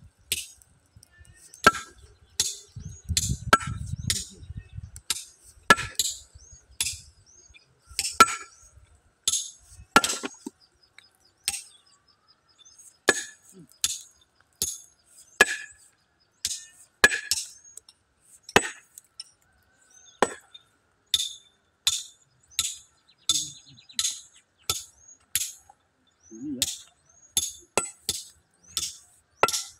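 Hammer blows striking a large boulder to split it, each a sharp metallic clink with a short ring, repeated steadily, about one a second at first and quicker near the end.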